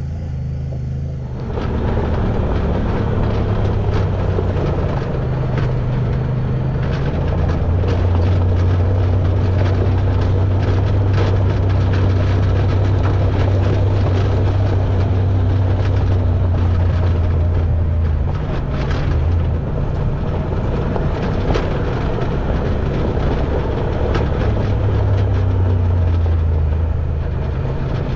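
Honda Talon 1000X-4 side-by-side's parallel-twin engine running under way, its steady low note shifting a few times with the throttle over a constant rush of tyre and wind noise. It grows louder about a second and a half in.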